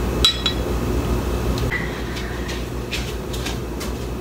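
Metal spoon clinking against a small glass bowl a couple of times, scooping a piece of eggshell out of a cracked egg, followed by a few faint clicks and knocks over a steady low hum.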